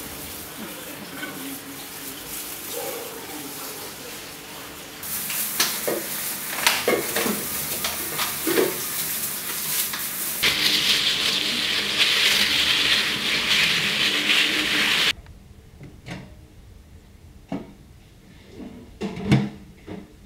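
Plastic-gloved hands mixing and kneading sticky bread dough in a stainless steel bowl: rustling, squelching and scraping, with clicks against the bowl, louder and hissier in the middle. It cuts off suddenly near the end to a quieter stretch with a few scattered clicks.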